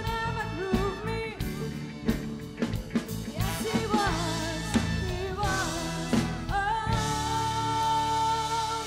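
Live soul band playing: a woman singing lead over a horn section of trumpets, electric guitar and drum kit, her line winding up and down before a long held note near the end.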